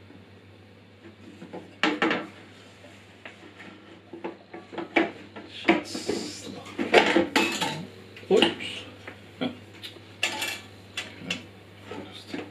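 Irregular metal clinks and knocks as the metal saw table of a Parkside PBS 350 A1 bandsaw is fitted onto its mount, the table and its fixing parts knocking against the saw's frame. The knocks come thickest in the middle stretch.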